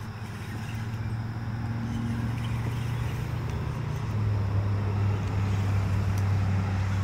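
A motor engine droning, a steady low hum that grows steadily louder, its pitch dropping slightly about four seconds in.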